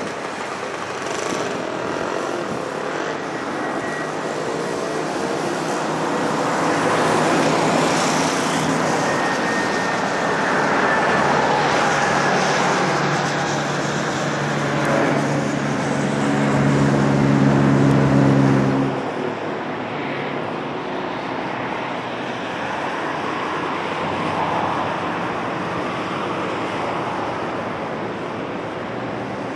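Boeing 767-300ERF freighter's twin jet engines passing low overhead on landing approach: a broad jet noise that builds to its loudest, with a low droning hum in the last few seconds before it cuts off abruptly about nineteen seconds in. After that comes quieter, steady jet noise from the same aircraft on short final.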